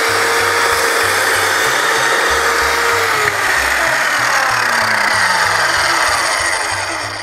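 Evolution R210 compound mitre saw running at full speed as its multi-purpose blade chops through a piece of MDF. About three seconds in the motor's whine starts falling in pitch as the blade spins down.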